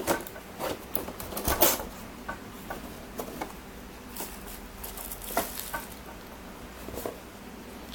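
Handling noise: scattered light clicks, knocks and rustles of objects being picked up and moved, the loudest about one and a half seconds in.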